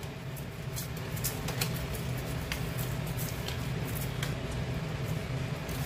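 Dry papery skin of a flame-roasted garlic bulb crackling in irregular small clicks as fingers peel the cloves apart over a steel plate, with a steady low hum underneath.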